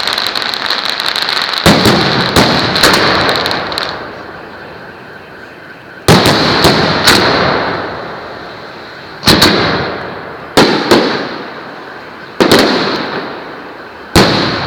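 Firework salute battery going off. At first dense crackling with three loud bangs in it, then about eight single sharp bangs in ones, twos and threes, each dying away in a ringing tail.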